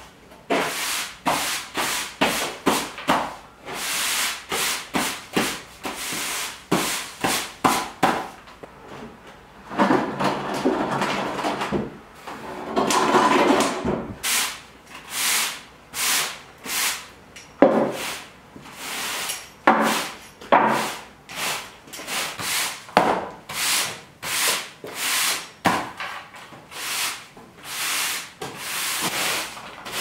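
Push broom sweeping a tung-oil-sealed concrete floor: bristles scraping in short repeated strokes, about one or two a second, with a longer run of steady sweeping about ten seconds in.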